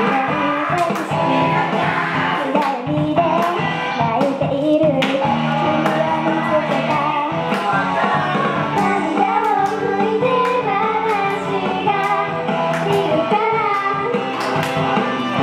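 Young girls singing a J-pop idol song in unison into handheld microphones over a recorded backing track with drum hits.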